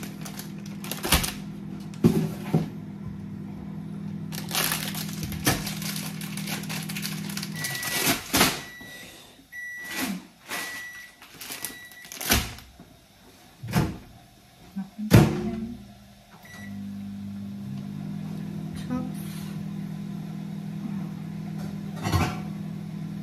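Kitchen work: dishes and cookware knocked and set down several times over the steady hum of a running kitchen appliance. The hum stops about eight seconds in, a few short electronic beeps from a touch control follow, and the hum starts up again a few seconds later.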